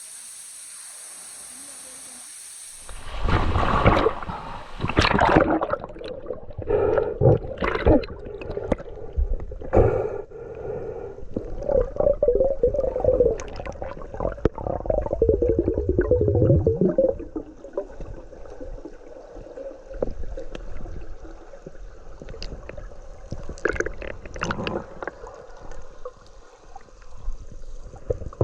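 A steady rush of falling water, then about three seconds in a sudden change to muffled, irregular gurgling and sloshing of water as the microphone goes into the water under the waterfall.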